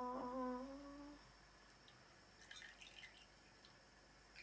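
A person humming one held note that steps up slightly in pitch and stops about a second in. After it, a few faint light clicks.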